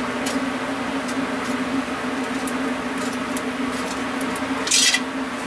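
Hagfish roasting on a wire grill over a straw fire: a steady low hum under light crackling clicks. Near the end comes a brief, louder scraping hiss as tongs move the fish across the mesh.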